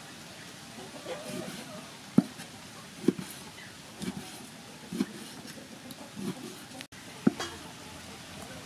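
A cleaver slicing through raw cow heart and knocking down onto a thick wooden chopping block, about six sharp knocks roughly a second apart.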